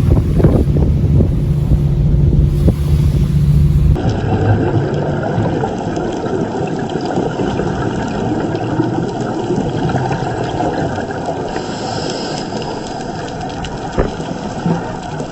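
Wind buffeting the microphone over a boat engine's low drone. About four seconds in, it cuts to a steadier engine-and-water noise, with a single sharp knock near the end.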